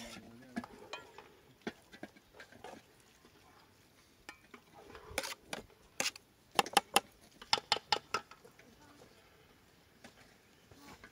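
Metal cookware clinking: a utensil knocking and scraping against a metal cooking pot and its lid, with a few separate clinks and then a quick run of sharp clinks lasting about a second and a half past the middle.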